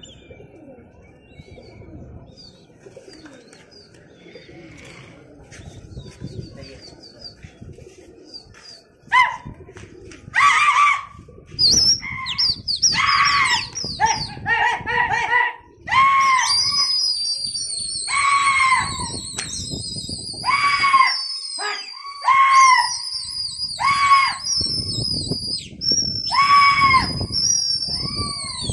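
Drawn-out shouted calls, repeated loudly one after another from about nine seconds in, each about a second long. From about halfway through, high warbling whistles rise and fall over them. Before the calls start there is only faint background sound. The shouts and whistles are the kind pigeon flyers use to drive their flock in the air.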